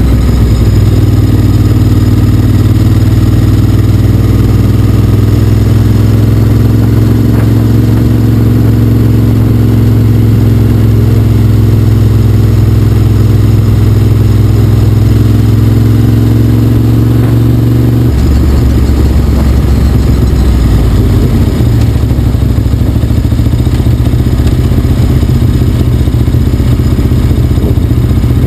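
Motorcycle engine running loud and steady at constant speed; about two-thirds of the way through, its note drops suddenly and it carries on at a lower, rougher pitch.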